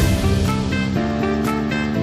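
Background music with guitar, with a strong note struck right at the start.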